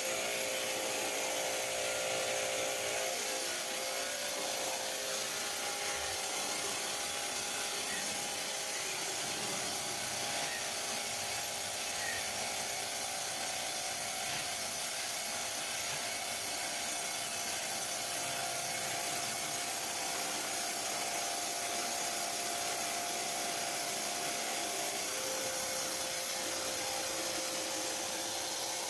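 Kärcher K5 pressure washer with a wet sandblasting kit running: a steady hiss of water and abrasive sand jetting against a metal pot, stripping oil paint and varnish, over the steady hum of the washer's motor and pump.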